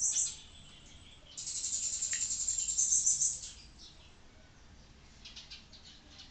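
Artline 500A whiteboard marker squeaking as its felt tip draws lines across a whiteboard: a short squeak at the start, a longer one of about two seconds from about a second and a half in, and a few fainter short squeaks near the end.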